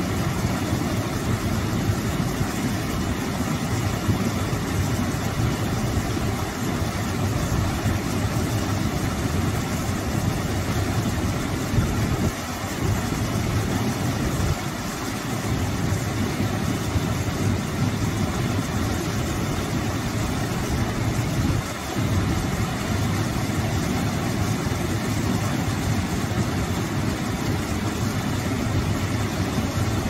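A small waterfall pouring over a rock ledge into a shallow pool: a steady, full rushing splash with a deep low rumble underneath, dipping briefly in level a few times.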